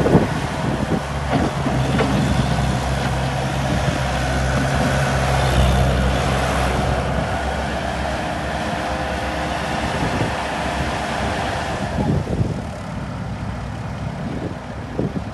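Diesel engine of a 2000 Bobcat 863 skid steer loader running steadily. It is loudest in the middle and drops to a lower, quieter level about three-quarters of the way through.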